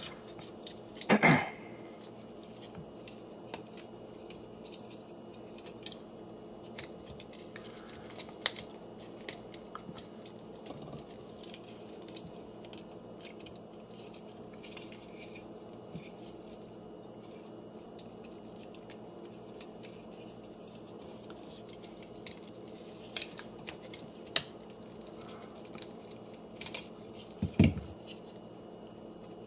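Plastic parts of a Transformers Twin Twist action figure clicking and snapping irregularly as its joints are twisted and pieces pulled apart and fitted by hand, with a few sharper, louder snaps.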